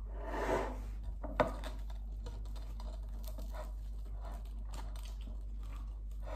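Close handling noises of a slice of bread being held and torn by hand: soft rustles and many small clicks, with one sharp tap about a second and a half in, over a steady low hum.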